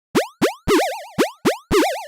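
Cartoon sound effects: a quick series of about six short rising 'bloop' tones, a couple of them warbling in a boing-like wobble.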